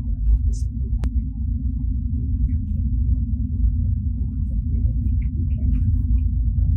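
Steady low drone of an 18-wheeler tractor-trailer being driven, engine and road noise heard inside the cab, with a single sharp click about a second in.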